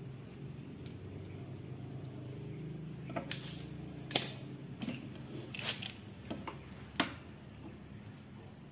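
Sharp clicks and knocks from a collapsed fibre telescopic fishing pole (tegek) being handled and laid on a wooden board, about seven in a few seconds, the last one loudest. A faint steady low hum runs underneath.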